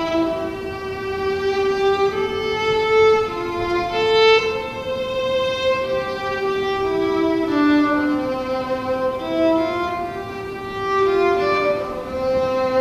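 Solo violin playing a slow melody of long held notes, moving smoothly from one note to the next.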